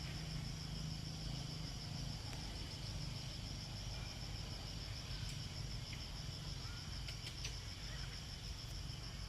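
Insects chirring: a high, fast, evenly pulsing trill that runs steadily over a low hum.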